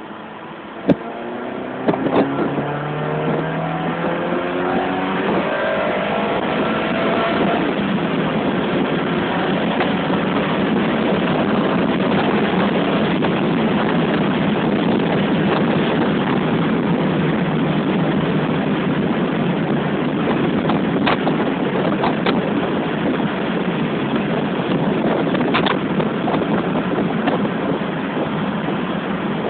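Ferrari engine revving up as the car accelerates hard, its pitch rising for several seconds after a single knock about a second in. This gives way to a steady, heavy rush of wind and road noise at high speed.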